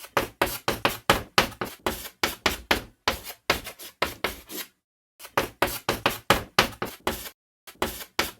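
A rapid, uneven series of sharp taps or knocks, about four or five a second, broken by two short pauses.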